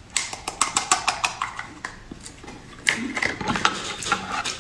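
Close-miked mouth sounds of eating a small jelly: a quick run of wet lip smacks and squishy chewing clicks, with a brief hum about three seconds in.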